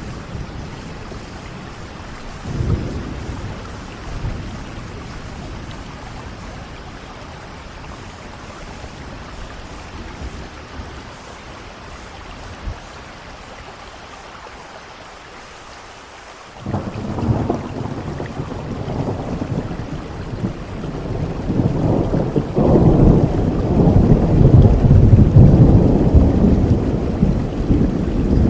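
Steady rain with thunder: a short rumble a few seconds in, then after a lull a loud thunderclap breaks suddenly just past halfway and rolls on, growing to its loudest near the end.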